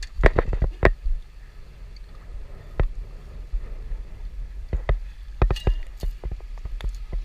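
A small pike splashing at the surface beside a fishing boat as it is landed in a net. Sharp knocks and clatter of gear on the boat come in a cluster at the start and again about five seconds in, over a steady low rumble.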